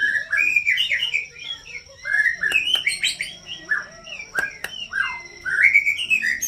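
White-rumped shama (murai batu) singing: varied whistled phrases sliding up and down in pitch, in four bursts with short pauses between them.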